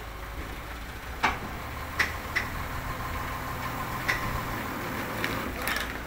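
A loaded small dump truck's engine running at low speed as the truck creeps forward. Several sharp, irregular knocks and clanks sound over it.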